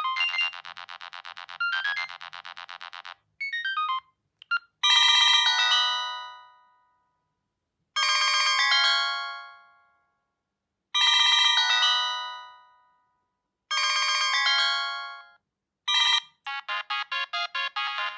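Siemens C65 mobile phone's stock polyphonic ringtones played through its small loudspeaker, with no bass. A fast repeating melody ends about three seconds in, followed by a short run of blips. Then four chimed chords sound about three seconds apart, each ringing out and fading, and another quick rhythmic tune starts near the end.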